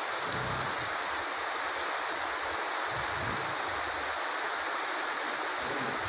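Heavy rain falling steadily on a paved road and trees, an even, unbroken hiss.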